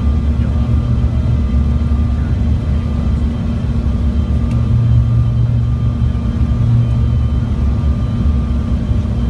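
Cabin noise inside a Bombardier CRJ700 regional jet during landing: a steady low rumble from its rear-mounted GE CF34 turbofans and the airflow, with faint steady whine tones above it.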